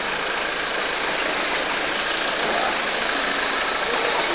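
Vehicle engine idling steadily, heard as an even, unbroken noise.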